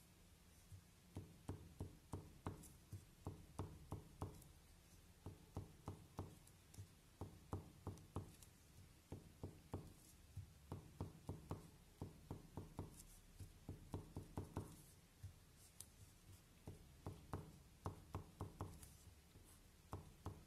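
Coloured pencil tapping small dots onto paper: quick light taps, about two to three a second, in runs broken by short pauses.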